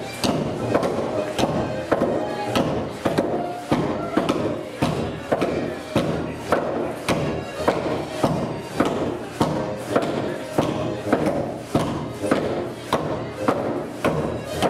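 Bavarian folk dance music with the sharp slaps and stomps of Schuhplattler dancers striking their thighs, shoes and the stage in time with the beat.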